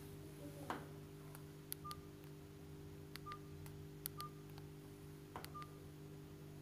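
Key tones of a basic keypad mobile phone: four short, high beeps with sharp key clicks as its buttons are pressed to step through the menu, over a faint steady hum.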